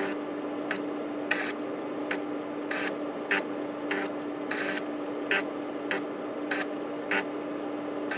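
Panasonic JU-257A135P 3.5-inch floppy drive running with its diskette spinning in a steady hum. Its stepper motor moves the read/write head in short grating bursts of differing length at irregular intervals, as the drive seeks between tracks during diagnostic testing.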